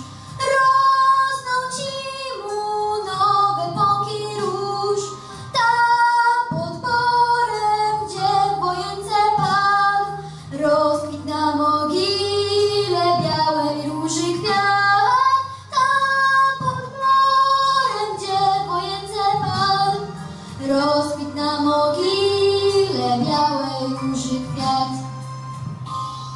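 A girl singing a Polish patriotic song solo into a microphone, in held, gliding phrases with short breaths between them, over steady low instrumental accompaniment. Her singing thins out near the end.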